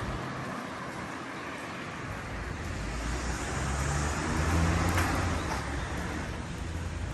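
A motor vehicle passing on the road, a rushing traffic sound with a low engine hum that swells to its loudest about four to five seconds in and then eases off.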